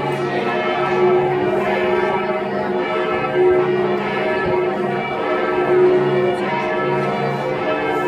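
Church bells ringing continuously, many overlapping bell tones sounding together with a slow, swelling pulse in the lowest tone.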